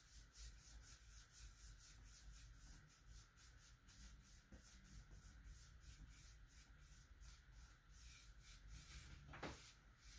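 Faint, quick strokes of a foam brush rubbing dye into a sanded wooden skateboard deck, about three strokes a second, with one soft knock near the end.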